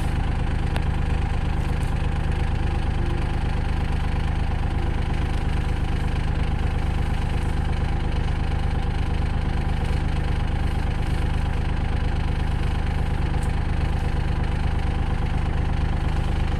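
Kubota tractor's diesel engine idling steadily, an even low rumble that does not change.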